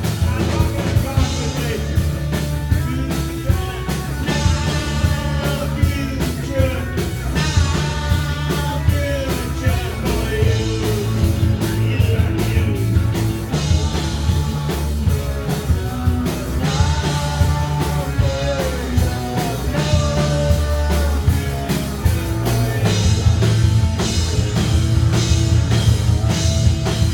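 Punk rock band playing live, with a singer over the band.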